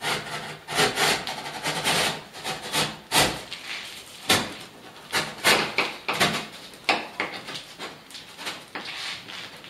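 Cardboard shipping carton being cut and worked open along its corner: irregular scraping and rubbing strokes, with sharp knocks on the cardboard.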